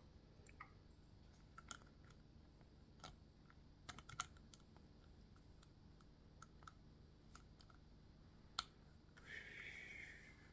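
Faint, scattered clicks and taps of a hard plastic action figure and a small tool being handled while a new rubber waist band is worked into the figure, with a short scraping rustle near the end.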